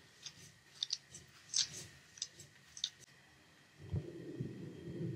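A few faint light clicks as sugar is spooned from a plastic cup into milk in a pan, then, from about four seconds in, a wooden spatula stirring the milk in a nonstick pan with a soft, steady swishing.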